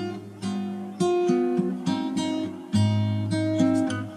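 Background music: acoustic guitar strumming chords, with a fresh strum about once a second.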